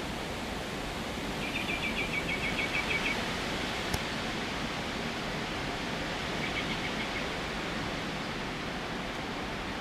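A small bird singing a rapid trill of about a dozen high notes about a second and a half in, and a shorter, fainter trill a few seconds later, over a steady background hiss. A single small click comes in between.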